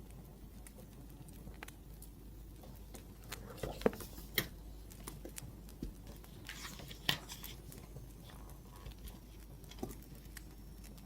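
Wood fire crackling, with scattered sharp pops and snaps, the loudest about four and seven seconds in.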